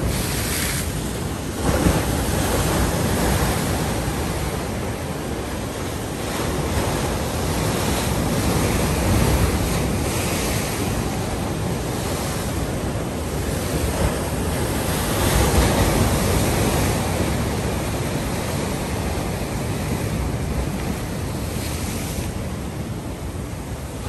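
Heavy king-tide surf: rough waves breaking and washing against a seawall, a continuous rush that swells as each wave breaks.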